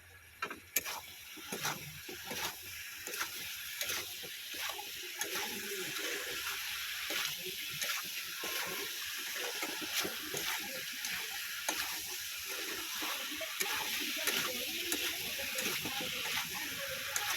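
Chicken curry with freshly added potatoes and tomatoes frying in a pan, with a steady sizzle and a spoon clicking and scraping against the pan as it is stirred.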